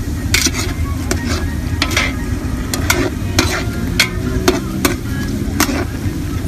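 A metal skimmer scraping and knocking against a large aluminium pot as sliced onions are stirred in hot oil, with light sizzling. The knocks come irregularly, about two a second, over a steady low rumble.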